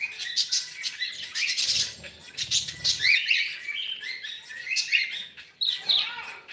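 Cockatiel chirping: a run of short, quick chirps with sharp clicks mixed in.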